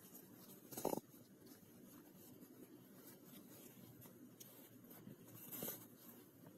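Soft rustling and brushing of trouser fabric being handled as the elastic waistband casing is bunched along a bodkin threading a ribbon through it, with a louder brush about a second in and another near the end.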